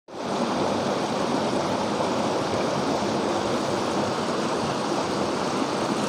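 Shallow river rushing and splashing steadily over and around large boulders.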